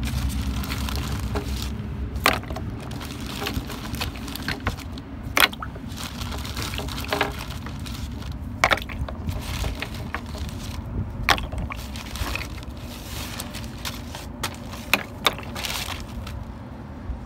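Plastic PVC pipe fittings being washed by hand in a plastic bin of soapy water: irregular sharp clicks and knocks as the fittings knock against each other and the bin, with some water splashing, over a steady low rumble.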